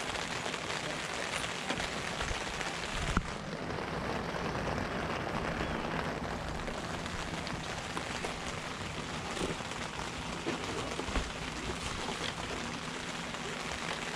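Steady rain, an even hiss with scattered drop taps, and a single sharp knock about three seconds in.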